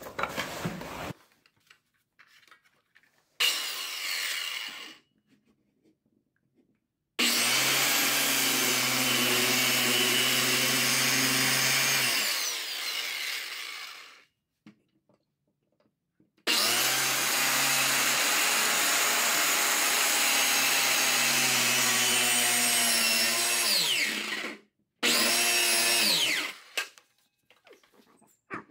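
Electric power saw cutting an access hole through a wall in four runs: a short burst about three seconds in, two long runs of several seconds each, and a short burst near the end. The motor's pitch falls as it winds down after each long run.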